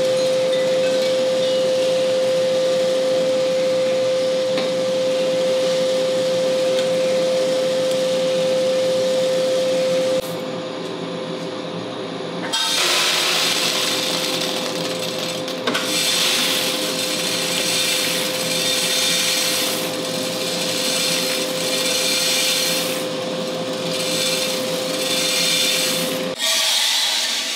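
Mill City 1 kg drum coffee roaster running, its motor and fan humming steadily over beans tumbling. About ten seconds in the sound changes, and a couple of seconds later a louder rushing rattle of beans starts. The hum cuts off near the end.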